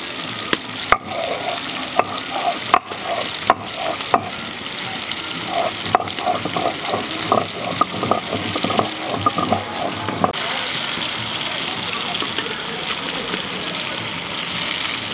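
Chilies being ground with a stone roller on a flat stone grinding slab (shil-nora): a steady gritty scraping, with sharp knocks of stone on stone several times in the first six seconds.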